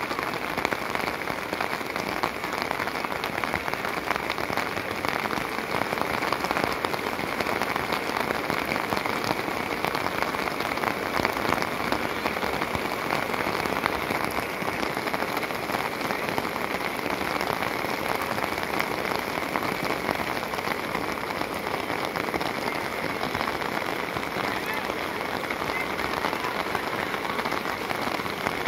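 Steady rain: an even hiss of many drop hits close by, with no let-up.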